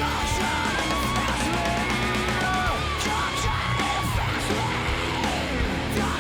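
Background music led by guitar, with a steady beat underneath.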